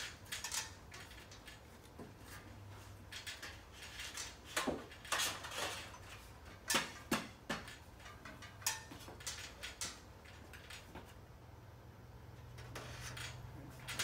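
Scattered knocks, clicks and clatter of an aluminium door frame being handled and set into a metal wall frame, over a steady low hum.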